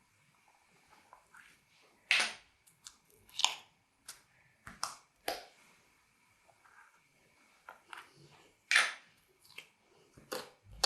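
Slime being squeezed and kneaded by hand, giving irregular sticky pops and crackles, several of them sharp and loud.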